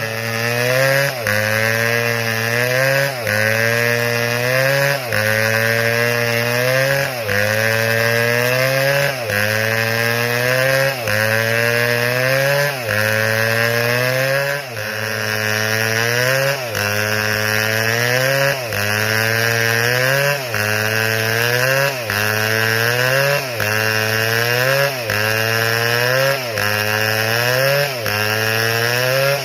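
Chainsaw running hard while cutting wood, its engine pitch dropping briefly and climbing back about every two seconds in a very even, repeating cycle.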